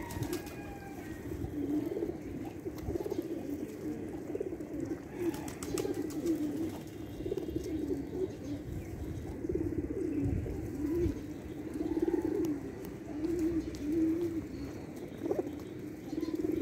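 Domestic pigeons cooing over and over, several birds' low calls overlapping, with a few light clicks in between.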